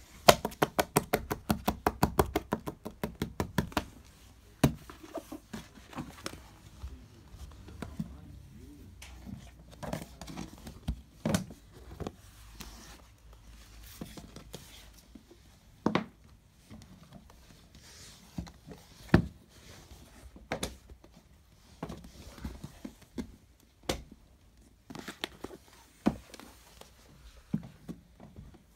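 Paperback books being handled and moved about: a fast run of clicks, about ten a second, for the first few seconds, then scattered knocks and thumps.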